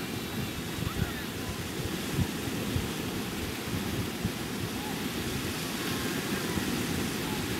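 Ocean surf breaking and washing in, with wind buffeting the microphone.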